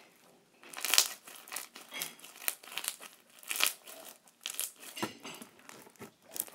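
Soft pink sequined slime being stretched, folded and squished between the hands, giving irregular short crackles and sticky pops.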